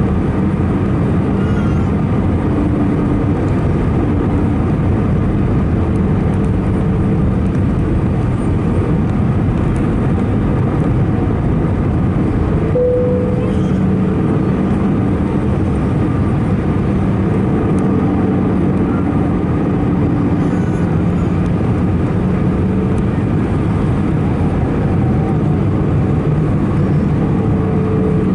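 Steady cabin noise inside an Airbus A319-111 in flight: a constant rush of air with the CFM56 turbofans' low drone and a few steady hums under it. A brief short tone sounds about halfway through.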